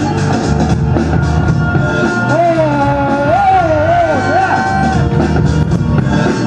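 Funky breakbeat music with a steady drum beat. A wavering melody line rides over it for about two seconds in the middle.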